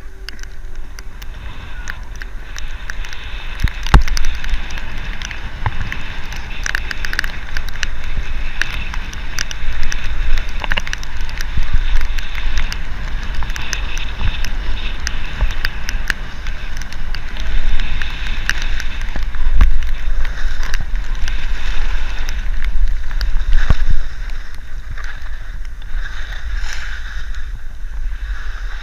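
Wind buffeting the camera's microphone during a fast downhill ride, with the steady hiss and scrape of edges sliding on packed snow. A few sharp knocks over bumps, the loudest about four seconds in.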